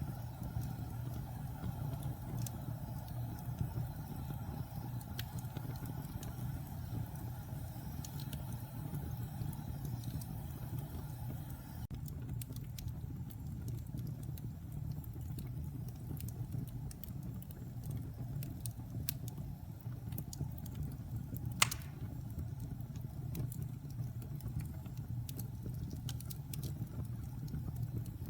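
Wood fire burning, with a steady low rumble and scattered small crackles and pops, and one sharper pop about three-quarters of the way through.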